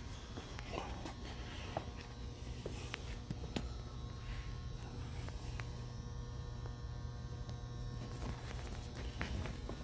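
Steady low hum with a faint buzz, broken by scattered soft clicks and taps.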